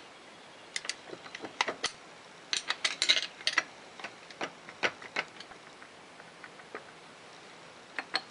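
Irregular light metallic clicks and taps as a screwdriver pries a gear loose from its shaft on a Polaris 400 engine. There is a quick cluster of clicks about three seconds in.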